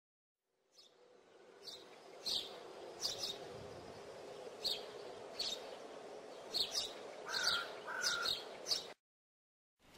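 Birds chirping: about a dozen short, high chirps at irregular intervals, with two lower whistled notes near the end, over a faint steady background hiss. The sound fades in and then cuts off abruptly.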